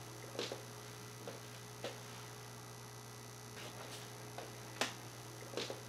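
Phono playback noise from loudspeakers turned up high, with no music yet: a steady low hum and a faint hiss, with scattered soft clicks from the turntable's stylus riding the record surface.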